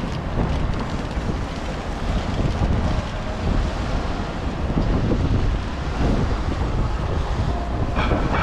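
Wind buffeting a camera microphone, a steady, heavy rumble.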